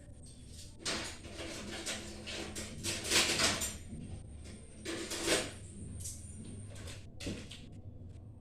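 Kitchen utensils being handled: a few irregular scrapes and knocks, the loudest about three and five seconds in, over a low steady hum.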